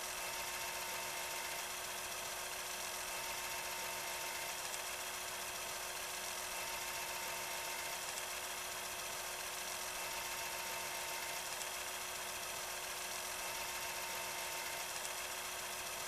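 A steady, even hiss with faint steady hum tones under it, unchanging throughout.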